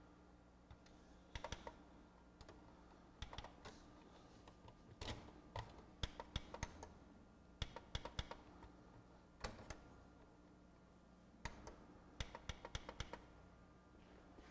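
Bursts of small, sharp clicks and taps from a CD changer's loading mechanism being worked by hand to free a stuck disc magazine. The clicks come in irregular clusters separated by pauses of a second or two.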